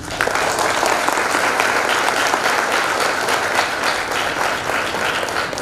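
Audience applauding: dense clapping that starts at once and begins to fade near the end.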